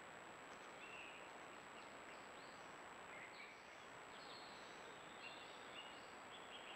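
Near silence: the steady hiss of a trail camera's microphone with a thin, constant high whine, and a scatter of faint, short, high chirps every second or so.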